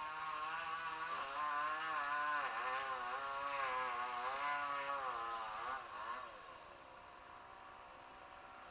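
Two-stroke chainsaw running under load while cutting, its pitch dipping and recovering repeatedly as it bogs in the wood. About six seconds in it drops sharply to a much quieter, steady hum.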